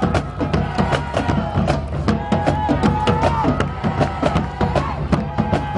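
Upbeat music with a steady beat of drums and percussion over a bass line.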